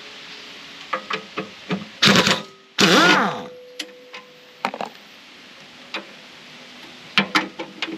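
Pneumatic air wrench run in two short bursts about two seconds in, the second ending in a falling whine as the motor spins down. Light clicks and knocks of the socket and bolts come before and after.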